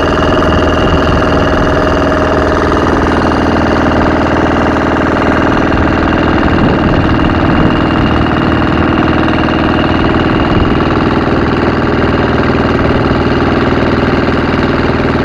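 Wooden boat's engine running steadily under way, a loud, even hum that holds the same pitch throughout.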